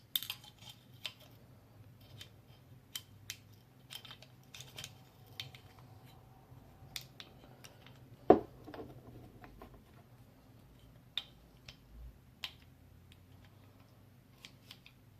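Small clicks and light taps of a T15 paintball marker's new trigger group being slid into the receiver and worked to line up the pin holes, with one sharper click about eight seconds in.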